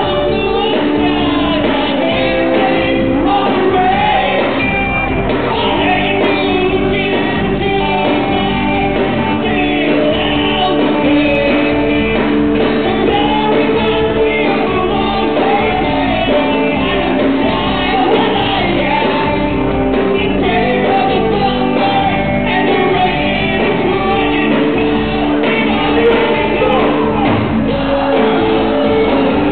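Live rock band playing with a singer, loud and unbroken, with shouted vocals in the mix.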